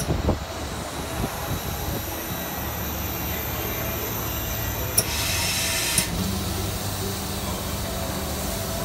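High-vacuum pneumatic conveyor running with a steady drone. About five seconds in, a click is followed by a one-second hiss of air and a second click, after which a steady low hum sets in.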